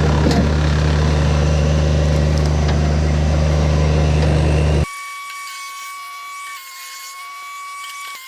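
Kubota BX tractor running a PTO-driven Woodland Mills WC46 wood chipper, a loud steady drone. About five seconds in it cuts off abruptly and gives way to quieter background music of steady held tones.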